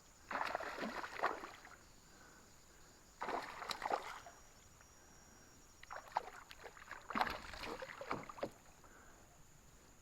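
Water splashing and sloshing around a small boat on a river, in three bursts a few seconds apart.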